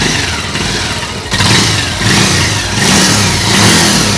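Bajaj Pulsar 150's single-cylinder four-stroke engine running, revved up and down a few times with the throttle.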